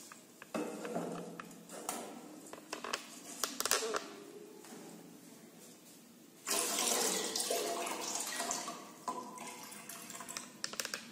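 Water poured from a mug into an empty aluminium cooking pot, splashing on the metal, with a few sharp clinks early on and the longest, loudest pour a little past halfway.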